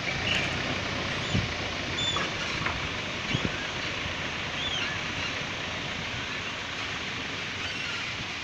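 Wind rushing over the microphone, a steady noise with two dull knocks in the first half and a few faint high chirps.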